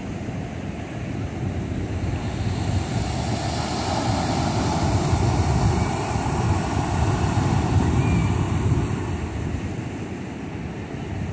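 Ocean surf breaking and washing up a sandy beach, swelling to its loudest in the middle and easing off near the end, with wind rumbling on the microphone.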